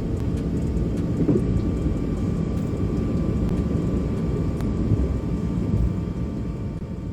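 A steady low engine rumble with a faint steady whine above it, easing off slightly near the end.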